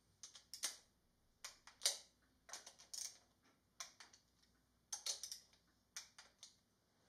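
Ratcheting wrench clicking in about six short bursts, each a few quick clicks, as the valve cover bolts are run down and torqued.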